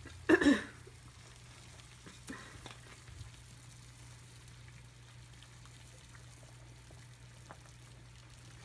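Pot of water heating on a high electric stovetop burner: a faint, steady hiss of water coming toward the boil over a low hum. There is one short loud sound about half a second in.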